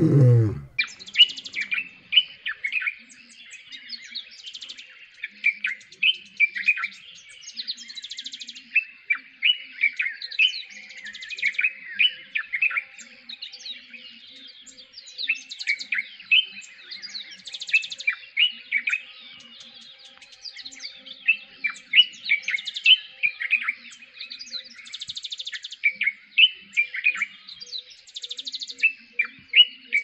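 A low, falling rumble dies away in the first second. Then continuous birdsong of many short, sharp chirps and liquid whistled phrases, with quick trills every few seconds, a dark-capped bulbul calling among it.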